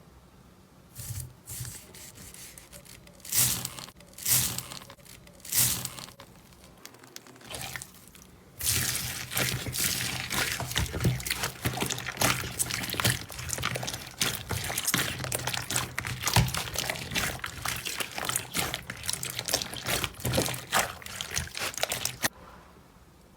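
Slime being squished and worked, making wet sticky squelches and small pops. There are a few separate squishes at first, then a dense, continuous run of crackling squelches from about nine seconds in that stops shortly before the end.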